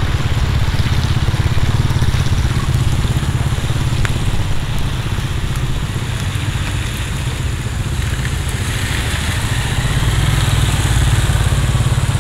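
Road traffic going through a bend on wet asphalt: cars, a van and motorcycles pass with their engines running and tyres hissing on the wet road, over a steady low rumble. It gets louder about nine seconds in as a van and a motorcycle come close.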